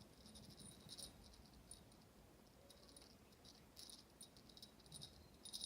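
Faint, intermittent high metallic jingling, coming in short irregular clusters.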